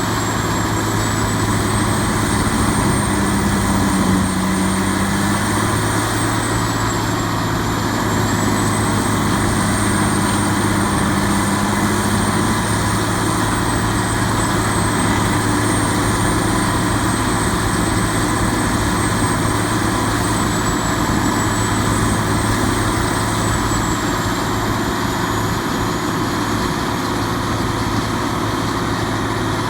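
The diesel engine of a 2008 Morbark 3800 horizontal grinder running steadily, a deep even hum with a thin high whine above it that wavers slightly in pitch.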